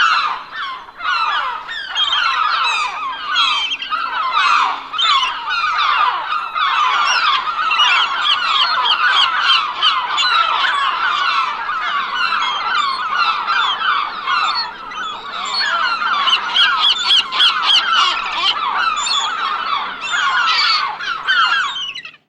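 A flock of gulls calling continuously, many short squawks overlapping one another, until the sound cuts off suddenly near the end.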